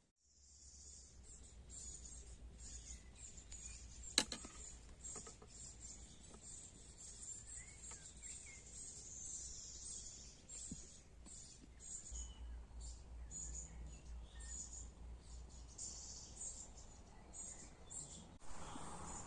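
Birds chirping and calling over a steady low rumble of wind, with one sharp click about four seconds in.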